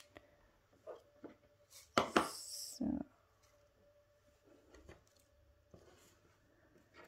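Plastic tub of small foam beads rattling as it is moved, ending in a dull knock as it is set down on a wooden table about three seconds in; light handling clicks before and after.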